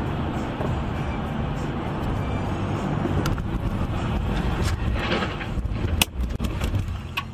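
Steady road and tyre noise of a car driving on a wet road, heard from inside the car. About six seconds in comes a sharp bang followed by a few lighter knocks, as a car that has spun out strikes the roadside guardrail.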